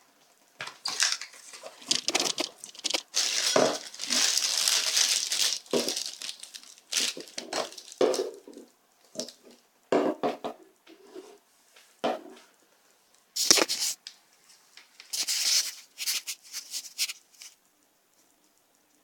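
Clear plastic packaging crinkling and rustling in irregular bursts as it is handled and opened, with a sharp knock a little past the middle as an item is set down on the table.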